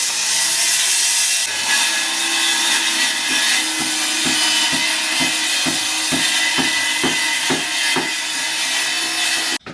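Sawing on a building site: a loud, steady rasping, with regular strokes about twice a second in the second half, that cuts off suddenly near the end.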